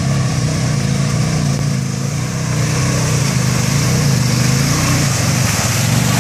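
Quad ATV engine running at low, slightly varying revs as the four-wheeler wades through a muddy creek, with water splashing around its wheels growing louder as it passes close by, about five seconds in.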